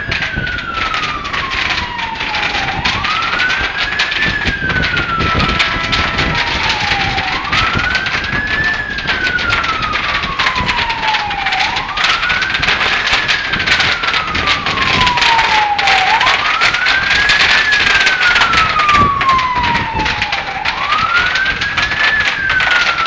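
Emergency vehicle siren wailing: each cycle rises quickly and then falls slowly, repeating about every four and a half seconds. Under it runs a steady rushing noise.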